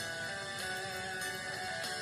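Background music with guitar playing a melody.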